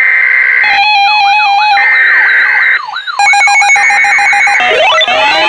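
Loud electronic alert tones: a harsh steady tone that starts abruptly, then overlapping synthesized beeps, warbling tones and repeated swooping tones, with rising glides near the end.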